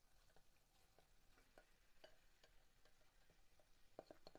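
Faint, scattered soft taps and scrapes of a spatula working yogurt-coated soya chunks out of a glass bowl into a kadai, with two sharper taps near the end.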